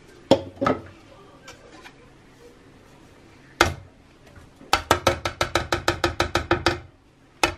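A plastic tub knocked rapidly against a red enamel saucepan to shake out turmeric powder: about nine quick knocks a second for some two seconds, with the pan giving a pitched ring. A few single knocks come before the run.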